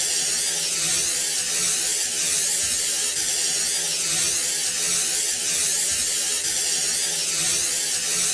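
Continuous hiss of an aerosol spray can, its tone wavering up and down, with a faint low pulsing underneath.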